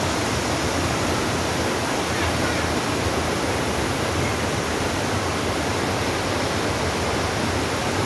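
Steady rush of a fast, rocky river running over boulders in rapids.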